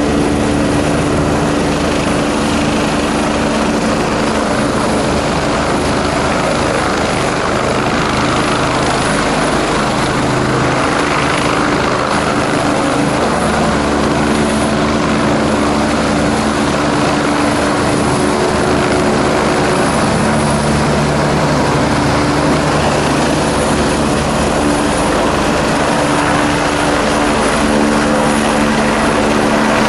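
Air-ambulance helicopter hovering low and close by, its rotor and engine noise loud and steady, with a few steady hums that come and go.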